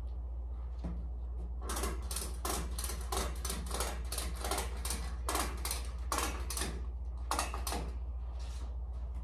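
An irregular run of short, sharp clacks, about two a second for some six seconds, from cargo handling inside a box truck, over a steady low hum.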